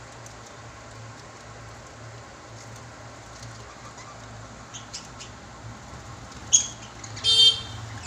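Lovebird giving two short, sharp, high chirps near the end, after a few faint clicks, over a steady low hum.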